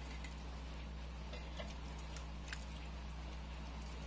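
Faint wet squelches and small clicks as ripe mangoes are squeezed by hand over a steel bowl, over a steady low hum.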